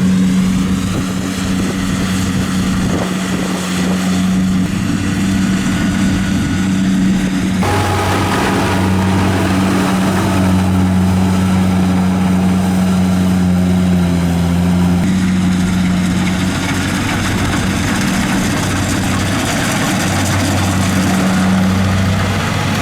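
Engine of a rice harvesting machine running steadily with a low, even hum; the sound changes abruptly about 8 and 15 seconds in.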